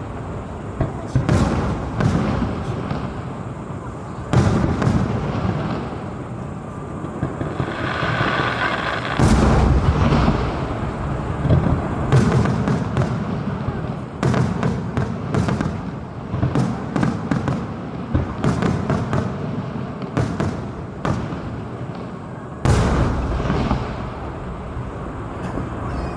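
Aerial fireworks display: shells bursting one after another in many sharp bangs, with crackling and a low rumble filling the gaps between them.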